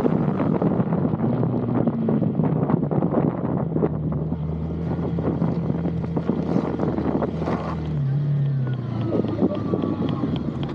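Honda CB300R's single-cylinder engine running steadily under way, with wind buffeting the microphone; the engine note drops about eight seconds in as the throttle eases off.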